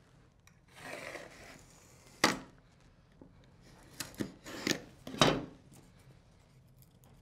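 Utility knife blade drawn along a framing square across a thin strip of scrap pine, scoring it in repeated scraping strokes to break through the grain, with several sharp clicks.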